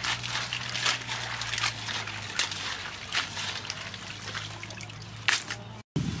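Razor clams being rubbed and washed by hand in water in a metal basin: water sloshing and trickling, with the shells clicking against each other and the basin every so often. The sound stops abruptly near the end.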